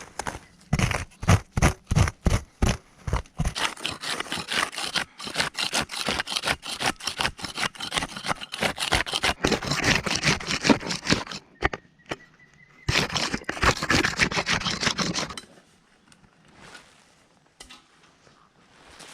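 Repeated work strokes: a run of heavy strikes about two to three a second, then fast continuous scraping strokes with a short pause in the middle. They stop about three-quarters of the way through.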